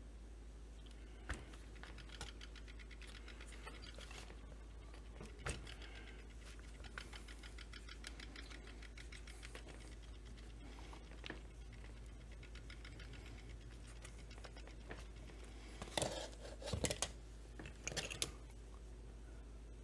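Plastic chainsaw housing parts being handled and fitted together by hand: scattered light clicks and scrapes, then a cluster of louder knocks and rattles about three-quarters of the way in.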